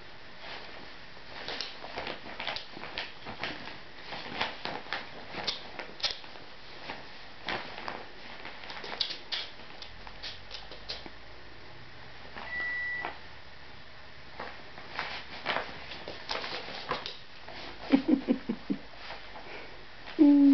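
A fabric tote bag rustling and scraping in many short, irregular bursts as a dog noses into it and a cat plays inside. Midway there is a short electronic beep. Near the end come a few short low-pitched sounds and then a louder one.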